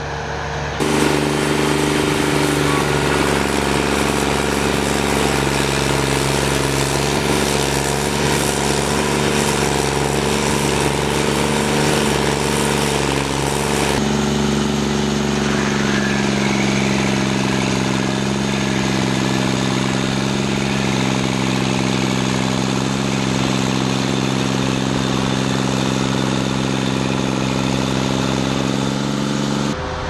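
Carlton stump grinder's engine running steadily as its cutting wheel grinds down a tree stump. The sound comes up sharply about a second in.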